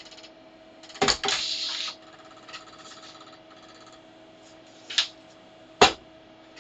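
Mechanical handling sounds from a Commodore 1541 floppy disk drive: a sharp click about a second in followed by a brief scraping, then two more sharp clicks near the end, over a faint steady hum.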